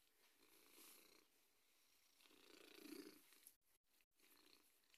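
Pet cat purring faintly, in two soft swells: one about a second in and a longer one around the middle.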